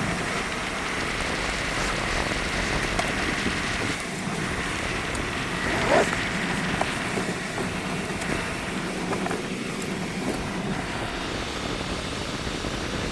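Steady background hiss and rumble, like a running vehicle or ventilation, under light handling noises of a fabric pet carrier being opened and looked into, with one brief louder sound about six seconds in.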